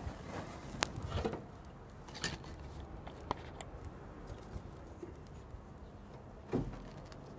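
Smouldering dry grass tinder crackling and rustling as it is handled and packed into a tin box with sticks: scattered small sharp crackles and clicks, a few seconds apart.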